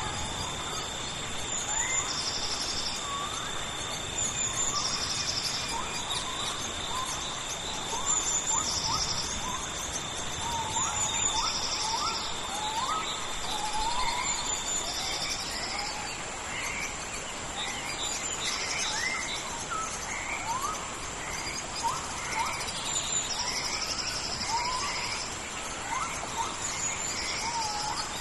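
Tropical rainforest ambience: an even hiss of rain under insects buzzing in repeated high bursts about every two seconds, with a steady high insect whine that stops about halfway through. Many short rising chirps of rainforest birds and frogs call throughout.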